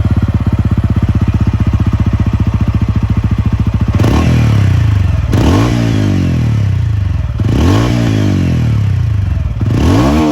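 TVS Ronin 225's single-cylinder engine idling with an even pulse, then revved four times with the throttle from about four seconds in, the pitch rising and falling back each time.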